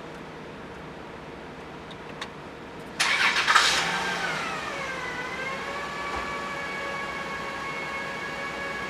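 BMW E64's engine starting: a sudden burst of cranking and catching about three seconds in, then the revs drop and settle into a steady idle.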